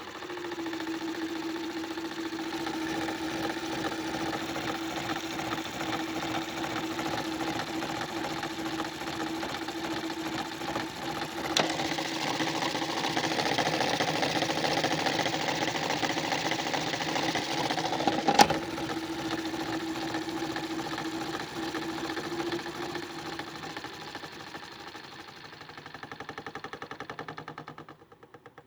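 Small electric motor of a modified toy washing machine humming steadily while its drum spins off balance, rattling and knocking, the rattle growing louder through the middle. Two sharp clicks come about halfway and about two-thirds through. Near the end the hum stops and the spin winds down.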